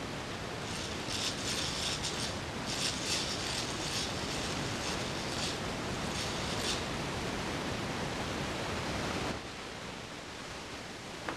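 Hand-cranked eggbeater drill turning, its gears whirring and clicking in uneven spurts for about six seconds as it bores a hole in a stick.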